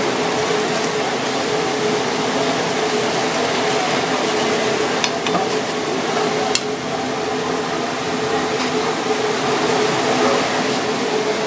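Grouper pieces simmering in broth in a metal bowl on a gas burner: a steady bubbling hiss over a constant kitchen hum, with a few sharp clicks about five and six and a half seconds in.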